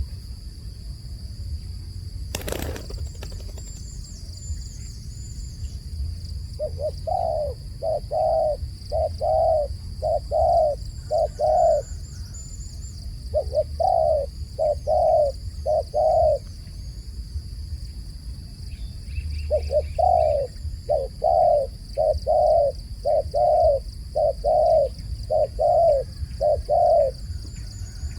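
A dove cooing in runs of short, evenly repeated notes: about six, then four, then nine, with pauses between. One sharp click comes about two and a half seconds in, and faint high chirps of small birds are heard behind.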